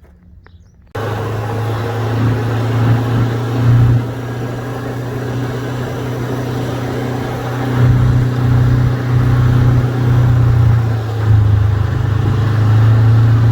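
Milking-system vacuum pump running with a steady low hum that starts abruptly about a second in.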